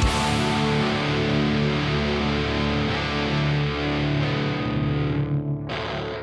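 Final distorted electric guitar chord of a pop-punk band recording, struck once and left to ring out, its brightness fading. A brief noisy burst comes near the end, and then the music cuts off suddenly.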